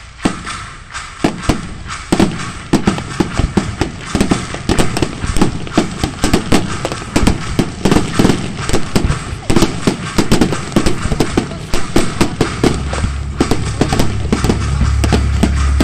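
Aerial fireworks bursting in a rapid barrage, many sharp bangs a second, growing denser after about two seconds. A steady low hum joins the bangs late on.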